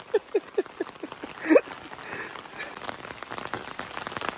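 Rain pattering on umbrellas, with many small drop ticks. In the first second a run of quick repeated high-pitched calls fades out, and one short rising call sounds about a second and a half in.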